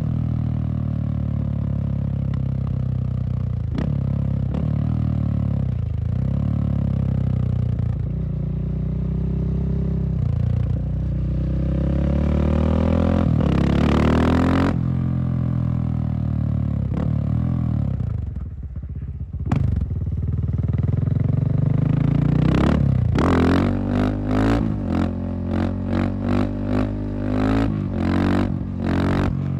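Husqvarna SM610 supermoto's single-cylinder four-stroke engine running under throttle, its pitch rising and falling. Near the end it gives a quick run of short throttle blips, about ten in a row.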